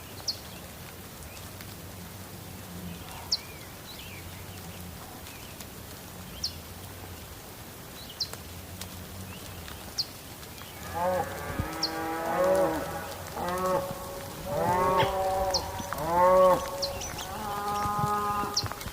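A run of about seven drawn-out animal calls, each rising and falling in pitch, beginning about halfway through, over a faint steady hiss with scattered short high ticks.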